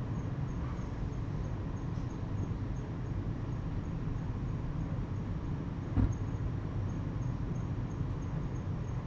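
Steady low background rumble with a faint, regular high ticking. About six seconds in comes one short thump, logged by the recorder as a house window being shut.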